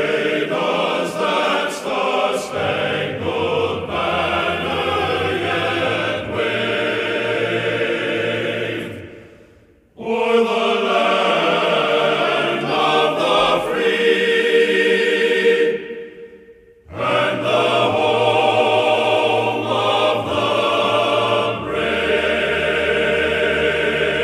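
Choral singing, in three passages that each fade out: about nine seconds in, about sixteen seconds in, and at the end.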